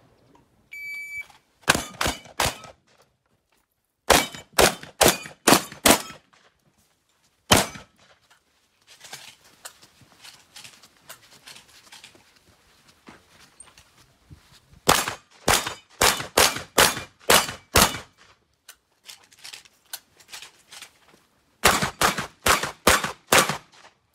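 A shot timer's short electronic beep about a second in, then a Benelli M2 semi-automatic shotgun fired in rapid strings: three shots, then five, then a single shot, and after a quieter stretch of handling noise, about seven shots and five or six more near the end.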